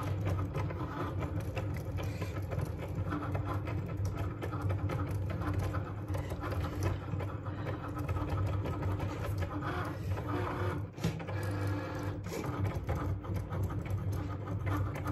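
Cricut Maker cutting machine running a cut on a printed sheet of stickers: its motors whir as the blade carriage moves across and the mat feeds through, a steady low hum with a higher whirring that comes and goes.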